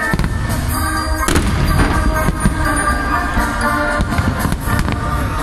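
Aerial firework shells bursting repeatedly with sharp bangs and crackles, over loud music.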